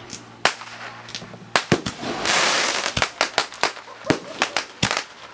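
Aerial fireworks going off: a few scattered bangs, then from about a second and a half in a rapid, uneven string of sharp reports, with a loud hiss of about half a second just after two seconds in.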